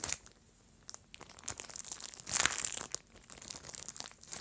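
A plastic bag crinkling as slime is squished inside it by hand, in uneven crackles, the loudest about two and a half seconds in.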